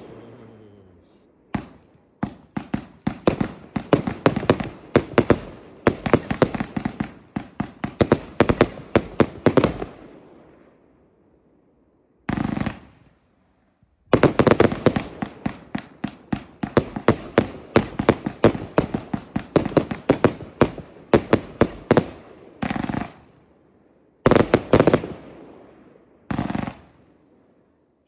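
Funke Elegant Night 100-shot, 30 mm firework compound cake firing: rapid runs of shots and shell bursts, several a second, broken by a pause of about four seconds near the middle and a few shorter gaps, with short single blasts in between.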